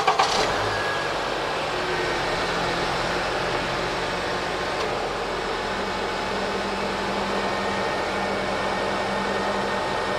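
Honda Element's 2.4-litre four-cylinder engine just started and running steadily with the air conditioning on, a constant rushing mechanical noise with a low hum under it after a brief surge at the start. The AC compressor is pulling refrigerant in through the low side as the system is charged.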